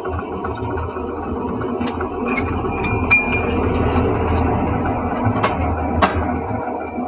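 Metal lathe running with a steady hum, with a few sharp metal clinks and a brief high-pitched squeal a little before the middle.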